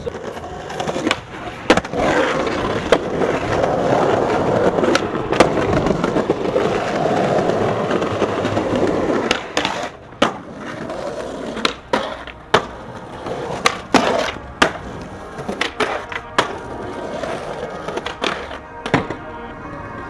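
Skateboard wheels rolling loudly over concrete, followed by a series of sharp clacks from the board's deck and tail striking the ground as it is popped and landed.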